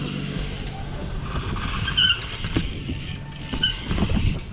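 A BMX bike being ridden over a dirt track, heard from a camera mounted on the bike: steady wind rumble on the microphone and tyre noise, with several knocks and rattles and two short squeaks, about two and three and a half seconds in.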